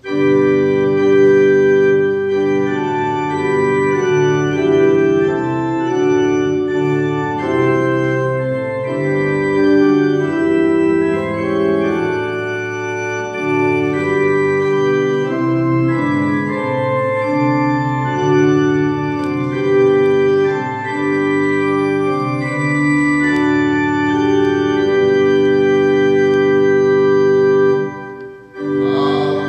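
Organ playing a hymn introduction in sustained chords that change every second or so. It comes in suddenly and breaks off briefly near the end, just before the singing begins.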